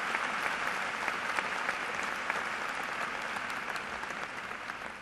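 An audience applauding, the clapping thinning out and fading near the end.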